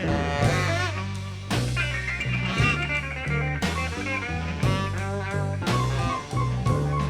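Live blues band playing an instrumental passage between vocal lines: guitar with wavering, bent notes over a walking bass line and drums.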